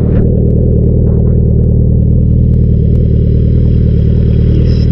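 Motorcycle engine running at a steady, unchanging pitch as the bike rides along at an even speed.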